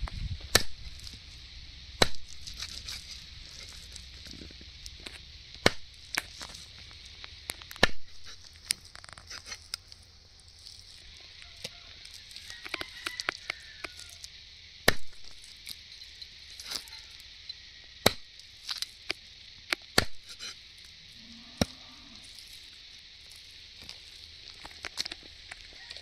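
Hand chopping with a knife on a cutting board: irregular sharp strikes, some hard and some light, every second or two, over a steady high hiss.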